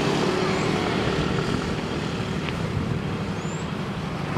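Vehicle engine running steadily on the move, with a low hum and a constant rush of road and wind noise.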